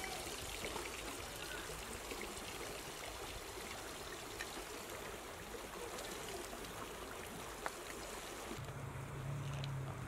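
Steady rushing hiss with a few faint crackles from a small wood fire. About eight and a half seconds in, the sound changes to a lower steady hum.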